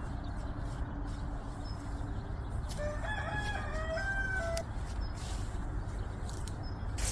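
A rooster crows once, starting about three seconds in and lasting about two seconds.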